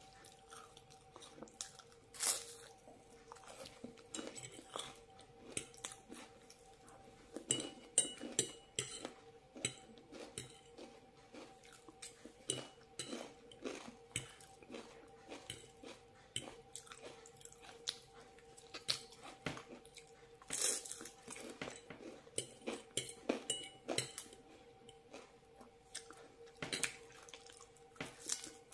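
Irregular crunching and chewing of a crispy rice cake topped with avocado and salad, with a fork clinking on the plate now and then, over a faint steady hum.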